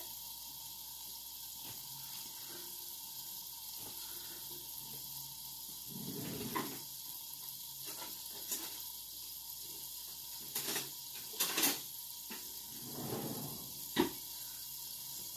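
Portobello mushroom frying in margarine in a lidded frying pan, a steady sizzle. A few sharp clicks and knocks come in the second half, the loudest near the end.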